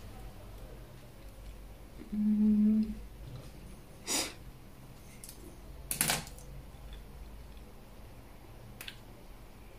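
Three sharp clicks a couple of seconds apart, from small tools or objects being handled and set down, with a short low hum about two seconds in.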